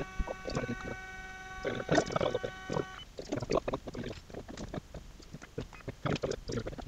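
Printrbot 3D printer's stepper motors whining with several steady tones, which cut off together about three seconds in, followed by a run of short, irregular clicks and knocks as the axes are jogged.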